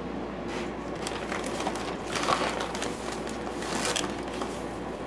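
Plastic measuring cup scooping granulated sugar from a paper sugar bag: paper rustling and sugar grains scraping, in several short irregular rustles.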